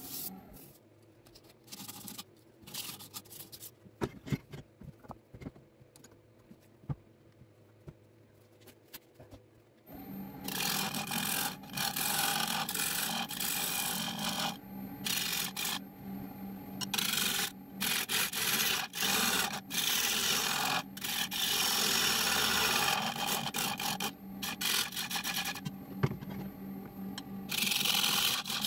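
Wood lathe spinning a pine bowl while a hand-held turning tool cuts and scrapes its outside in stop-and-start passes, over a steady low hum from the lathe. The cutting starts about a third of the way in; before that there are only scattered light knocks.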